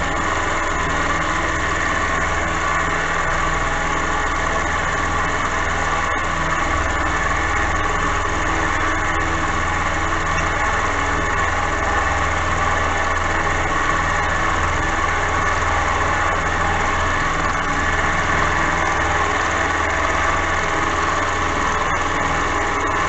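Milling machine running steadily under power feed, its cutter milling through a block of steel: an even mechanical drone with a steady high whine.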